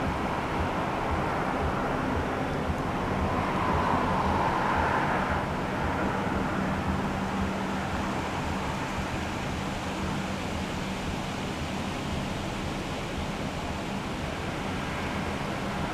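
Steady rumble of distant road traffic, swelling about four seconds in as a vehicle passes, over a low steady hum.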